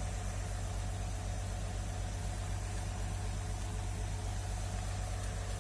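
Excavator's diesel engine running steadily at idle, a low even hum with a fine regular pulse and no change in revs.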